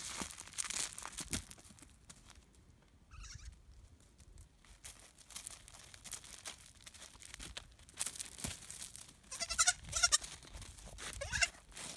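Young goat bleating in short, high-pitched calls: one faint call about three seconds in, then a few more in quick succession near the end. Footsteps crunch on gravel in the first second or so.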